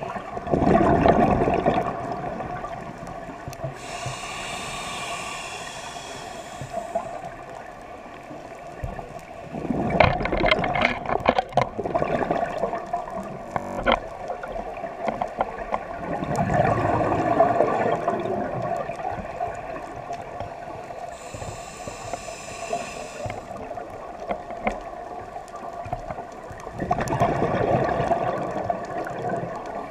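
Scuba regulator breathing underwater: a hissing inhalation through the regulator and four bubbling exhalations, each about two seconds long and several seconds apart.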